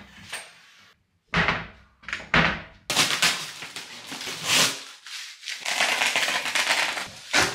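Packing tape being peeled off a cardboard box in several tearing pulls, the longest lasting nearly two seconds, with the cardboard rustling as it is handled.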